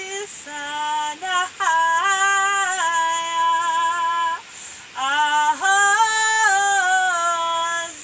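A woman singing a wordless light-language chant in long held notes that step up and down in pitch. Two phrases, with a short break a little past halfway.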